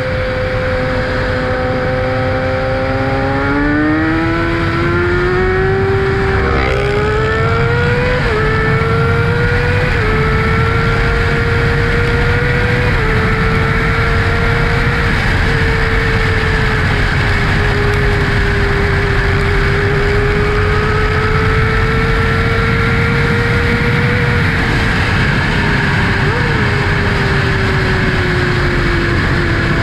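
2012 Kawasaki ZX-6R's 599 cc inline-four, through an M4 Tech 1 exhaust, heard from the rider's seat. It pulls hard after a few seconds and shifts up twice, then holds a steady cruise and eases off near the end. Steady wind rush runs underneath.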